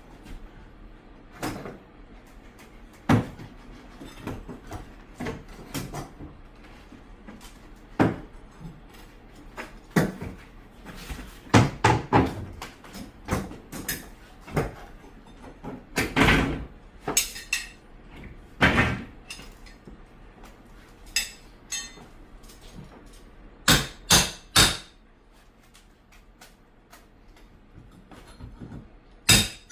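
Irregular wooden knocks and clatter from old hand-nailed hardwood floorboards being pried up and handled, with sharp single hits and a few quick clusters of hits.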